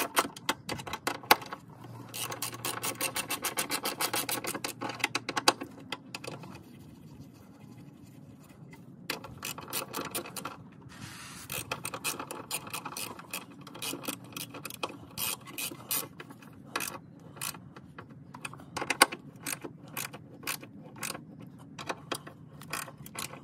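Socket ratchet clicking in fast runs as the bolts of an ATV's underbody access cover are turned in. After the first few seconds it goes quieter, with shorter scattered bursts of clicks and handling noise.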